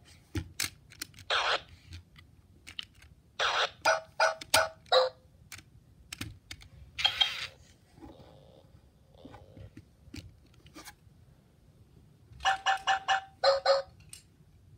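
Plastic clicks and knocks from a 2005 Hasbro i-Dog robot toy being handled, with two quick runs of short electronic chirps from its speaker, at about four or five a second: a few seconds in and again near the end.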